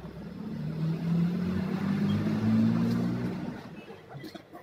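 Industrial sewing machine running as it stitches a seat cover: a steady motor hum that speeds up a little, then winds down and stops near the end.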